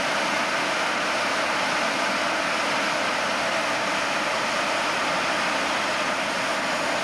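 Simjet 1200 model jet turbine running steadily: an even rush of exhaust noise with a faint high whine above it.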